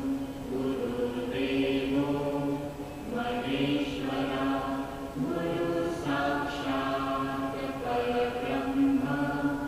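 Chanting voices singing a mantra in long held notes, changing pitch every second or two.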